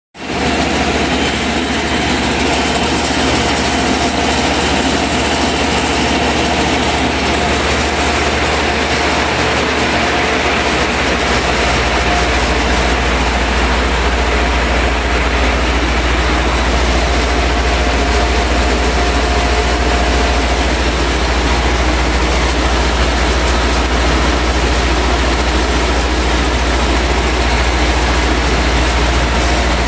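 TM-400 turbo mill running steadily as it grinds rubber film offcuts fed into its hopper. A low hum under it grows louder about eleven seconds in.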